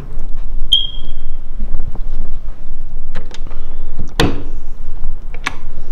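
A smoke detector giving a single short, high chirp about a second in. About four seconds in, a door knob is grabbed with a sharp click, the loudest sound here, and lighter knocks and clicks follow.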